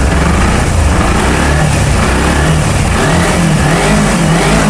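A 2011 first-generation Kawasaki Ninja 250's carburetted 249 cc parallel-twin engine running just after being started, with its pitch rising and falling slightly. It has the characteristic twin-cylinder note.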